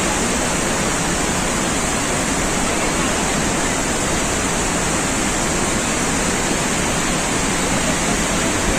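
Iguazu Falls, the steady loud rush of a big waterfall.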